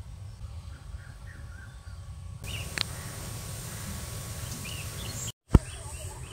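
Outdoor ambience of birds calling here and there, over a steady low rumble. The background changes abruptly about two and a half seconds in, and a brief dropout and a sharp click come near the end.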